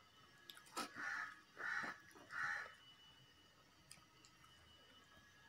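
Rangoli chalk being drawn across a rough floor: three faint, short scratchy strokes about 0.7 s apart in the first half, then only faint background.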